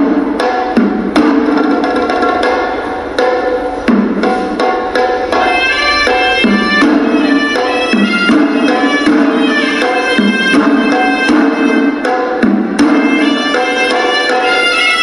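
Hewisi ensemble playing: traditional Sri Lankan drums beat a dense rhythm, and a shrill double-reed horanewa melody comes in over them about five seconds in.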